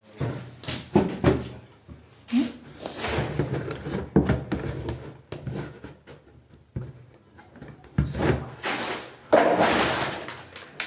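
Irregular knocks, scrapes and rustling as a feed tank of dairy meal is covered and closed up.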